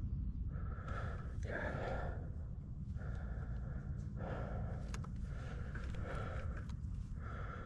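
A person breathing hard in quick, regular breaths, about one a second, over a steady low rumble.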